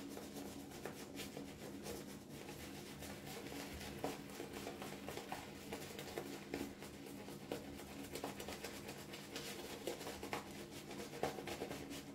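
Synthetic-knot shaving brush face-lathering soap: faint, irregular brushing and squishing strokes of the bristles over the lathered face, with a steady low hum beneath.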